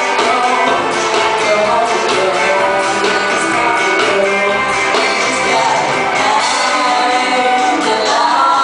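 Live band playing a pop-rock song: a singer over amplified, strummed guitar and drums, loud and steady.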